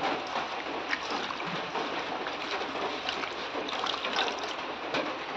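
Water pouring in a steady stream into a steel bowl of leafy greens, splashing and trickling as the greens are rinsed.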